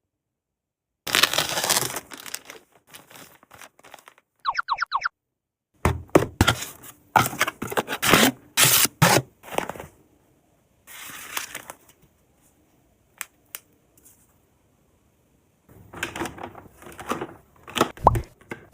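Plastic packaging crinkling and tearing in short bursts, between clicks and taps of items and containers being handled and set down, with pauses between actions. About four and a half seconds in there is a quick run of squeaks.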